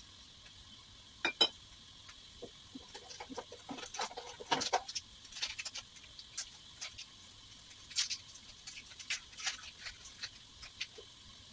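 Tomato and onion curry base cooking under the glass lid of a wok, bubbling with irregular pops and splutters, busiest around four to five seconds in.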